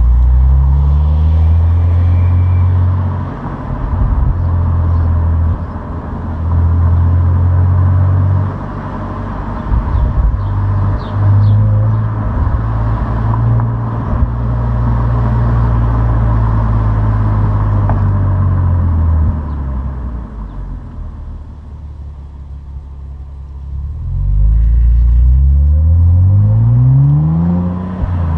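Opel Insignia OPC's turbocharged 2.8-litre V6 on its stock exhaust, running under load with the engine note dropping and picking up again several times, holding steady for a while, easing off, then revving up in a rising pull near the end before dropping back.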